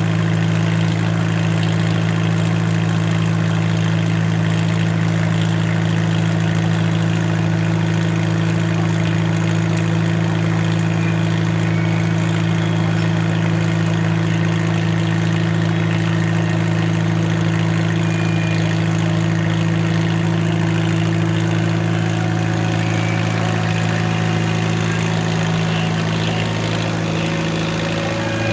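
Farmall H tractor's four-cylinder engine running at a steady speed while driving a sawmill, easing off slightly near the end.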